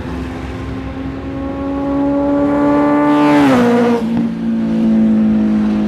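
Honda CBR650F's inline-four engine with an aftermarket exhaust passing at high revs: a steady high note that climbs slightly and grows louder as it approaches, drops in pitch about three and a half seconds in as it goes by, and holds the lower note as it moves away.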